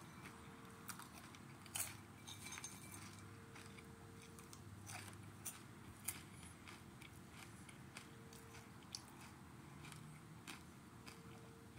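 Faint chewing of crunchy lime-flavoured hot pepper pieces: a scatter of small crunches and mouth clicks, with a couple of sharper cracks, about two seconds in and about six seconds in.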